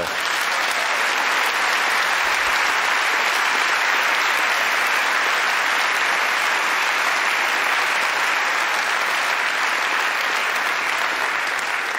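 A large audience applauding, a long, steady round of clapping that starts at once and eases off slightly near the end.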